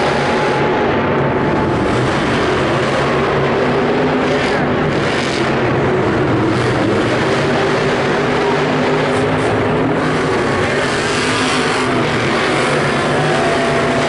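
Monster truck engines, supercharged V8s, running loud and steady, with several engine notes at different pitches overlapping.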